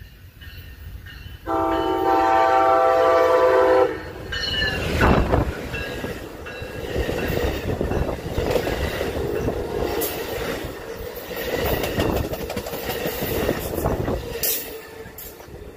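Amtrak Pacific Surfliner passenger train sounding one long horn chord about a second and a half in, which cuts off sharply after a little over two seconds. The locomotive then rushes past close by, and the bilevel cars rumble and clatter by on the rails.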